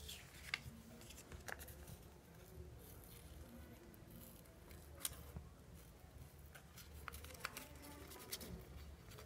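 Scissors cutting paper: faint, irregular snips as the blades close through a paper cutout.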